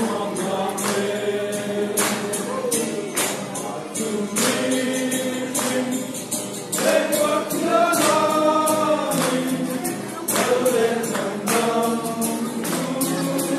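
A group of men singing together in chorus, a gospel-style song backed by a steady beat of sharp percussion hits such as tambourine and drums.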